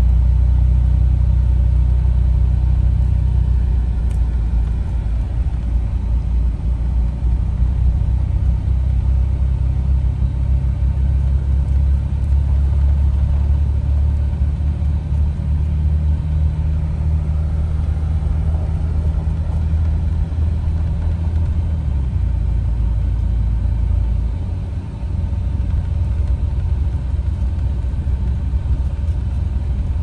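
Engine and road noise heard inside a moving car's cabin: a steady low rumble whose engine note shifts a few times, dipping briefly about 25 seconds in.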